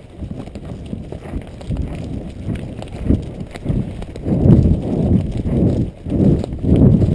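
Horse cantering across a stubble field: dull, rhythmic hoofbeats on soft ground, growing louder about halfway through.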